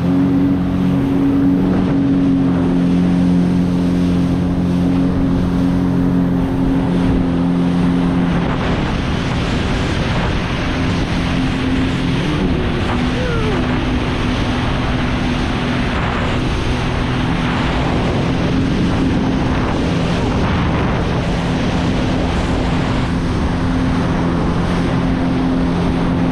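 Jet ski engine running at steady cruising speed, holding an even note, with the rush of spray and water off the hull around it.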